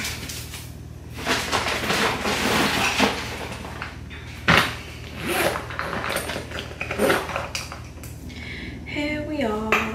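Rummaging through makeup and brushes: small hard items clattering and rustling, with a sharp knock about four and a half seconds in. A short falling pitched sound comes near the end.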